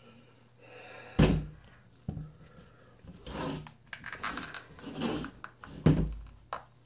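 A heavy cardboard slipcase holding two hardcover books thumps down on a table twice, about a second in and again near the end. Between the thumps there is scraping and rustling as the tightly fitting books are worked at inside the case.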